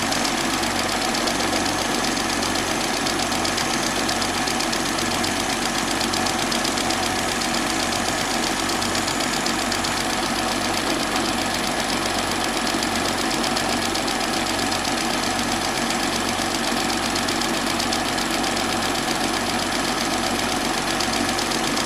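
Small lathe running steadily while light cuts of about a thousandth of an inch are taken off the end of a clock center shaft. A steady motor hum with a low throb repeating a little more than once a second.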